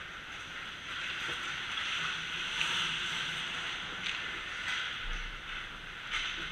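Hockey skates scraping and carving across the ice close to the goal, a steady hiss that grows louder as players close in, broken by a few sharp knocks of sticks and puck.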